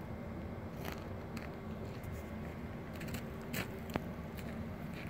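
Steady low hum of a stationary EN57FPS Feniks electric multiple unit, with a few short clicks, the sharpest two near the end.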